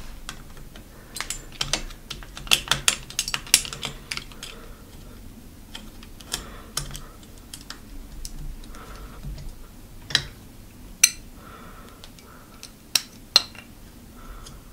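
Small metal clicks and clinks from a screwdriver working the screw at the end of a bicycle brake lever and the lever's small parts being handled as the safety lever is taken off. A busy run of clicks comes in the first four seconds, then a few sharp single clicks.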